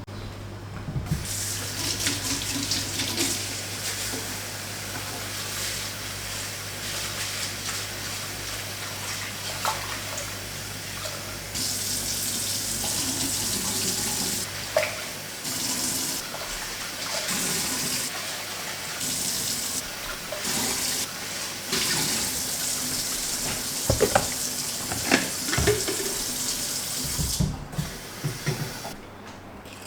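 Kitchen tap water running into a sink, turned up and down several times in the second half, with a few knocks of dishes or utensils against the sink.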